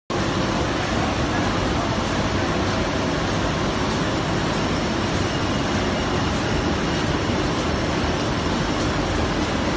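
Dry laminating machine running at about 150 metres per minute, feeding BOPP and CPP film through its rollers: a steady, even mechanical running noise.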